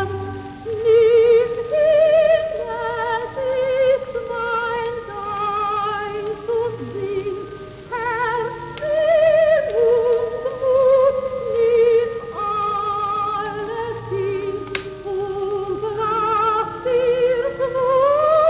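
Soprano singing with wide vibrato over choir and orchestra, played from a 1948 shellac record: the sound is dull, with no highs, and scattered crackles run through it.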